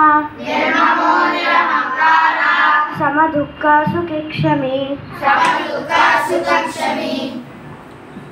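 A child's voice chanting a Sanskrit verse in a sing-song melody, phrase by phrase with short breaks, stopping about seven seconds in.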